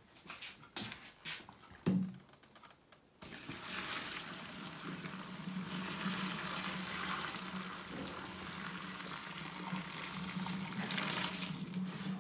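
Hot pasta water poured from a pot into a plastic colander in a sink, a steady rush of water that starts about three seconds in. Before it come a few knocks and a thump.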